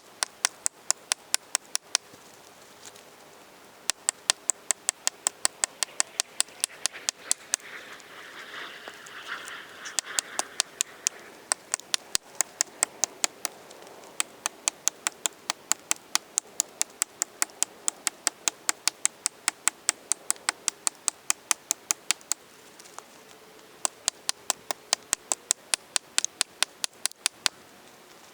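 Axe strikes chopping into a tree trunk, one-handed and sped up eightfold, so the blows come as rapid sharp clicks about three a second. The chopping pauses briefly a couple of seconds in and again near the end, and a short noisy rush rises and fades in the middle.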